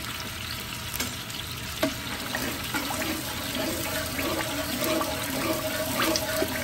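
Thin, watery curry base swirling and sloshing as a long ladle stirs it round a large aluminium stockpot. The base has just been thinned with about a litre of water, so it sloshes instead of sizzling.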